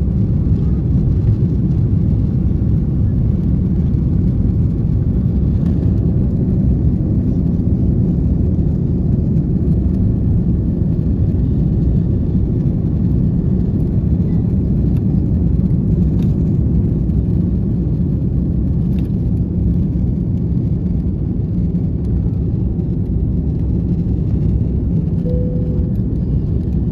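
Cabin noise of an Airbus A330-200 at takeoff thrust, heard from a window seat behind the wing: a steady low rumble of the engines through the takeoff roll and lift-off.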